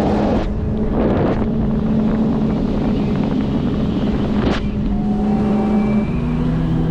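Boat's outboard motor running steadily under way, its engine note shifting about six seconds in, with three short rushes of water and wind noise over it.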